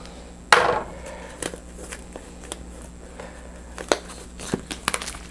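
A loud knock about half a second in, then scattered small clicks and crinkles as plastic shrink wrap on a board-game box is picked at and cut open. A steady electrical buzz from the recording hums underneath.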